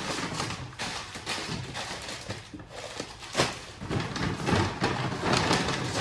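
Grocery packaging being handled, with irregular rustling and crinkling bursts.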